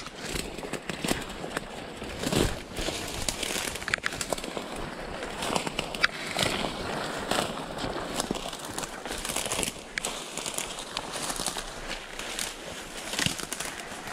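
Footsteps through wet leaf litter and underbrush, with leaves and twigs rustling and snapping against clothing close to the microphone in an irregular run of crackles.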